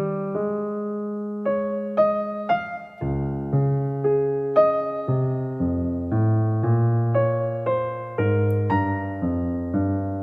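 Solo piano background music, notes struck about twice a second over held low notes.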